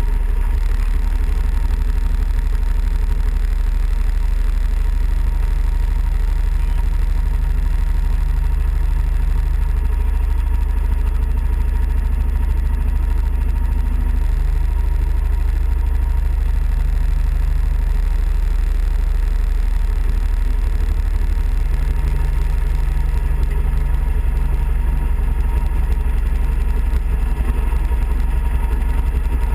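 Off-road kart engine running steadily while driving, its note swelling and easing a little several times over a heavy, constant low rumble.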